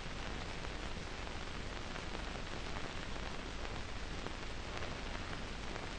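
Faint steady hiss with a low hum, the background noise of an old 1955 film soundtrack, with no other sound standing out.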